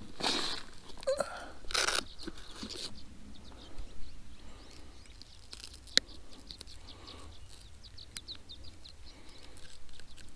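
Hands and fishing pliers working a hook out of a small bass's mouth: rustling of clothing and gloves, loudest in the first two seconds, and a sharp click of the pliers about six seconds in.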